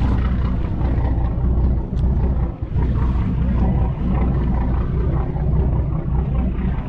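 A charter boat's engine running steadily: a low, even hum, with noise from the water and wind over it.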